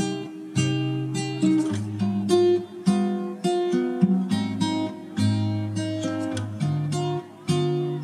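Background music: an acoustic guitar picking a steady run of plucked notes and chords, several notes a second.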